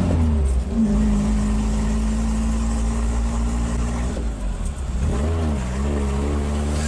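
Daihatsu Feroza's four-cylinder petrol engine running under way, heard from inside the cabin. The engine note is steady, then briefly drops away and wavers about four to five seconds in before settling again.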